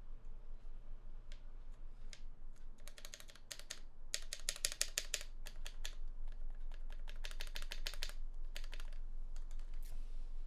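Quick runs of sharp plastic clicking from a keyboard stabilizer stem pressed up and down repeatedly to work in fresh lube, loudest and densest a few seconds in and again near the end.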